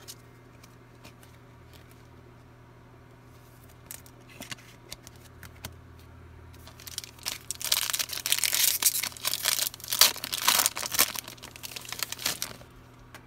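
Foil wrapper of a Panini Mosaic No Huddle football card pack crinkling and tearing as it is ripped open by hand, starting about seven seconds in and lasting some five seconds. Before that, only a few light clicks of handling.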